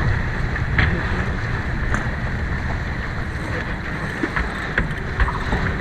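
Steady rushing of wind and water aboard a sailboat under sail, with a few sharp clicks now and then.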